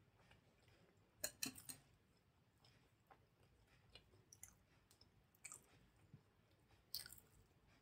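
Quiet mouth sounds of a person chewing soft idli with sambar: scattered short smacks and clicks, with a cluster of louder ones about a second in and another near the end.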